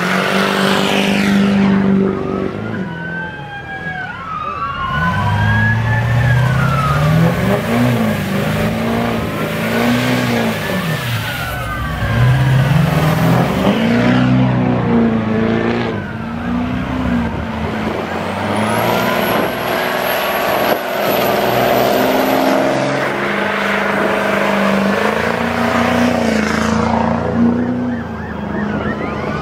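Diesel pickup truck engine revving hard over and over, each rev climbing and dropping back, while its tyres spin in a burnout. Police sirens wail throughout.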